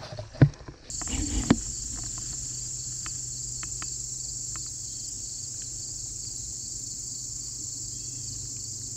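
Two sharp thumps about half a second and a second and a half in. From about a second in, a steady high-pitched insect chorus of late-summer field insects runs on with a fast, even pulse.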